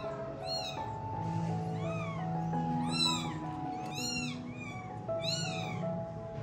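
Young kittens mewing over and over, short high-pitched calls that rise and fall, about one or two a second, over background music with held notes.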